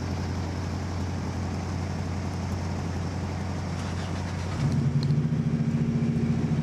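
Car engine idling with a steady low hum; about four and a half seconds in, a louder, rapidly pulsing idle from a closer engine takes over.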